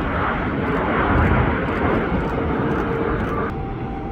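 Airliner engine noise: a steady roar with faint whining tones, easing off slightly near the end, as on a landing approach.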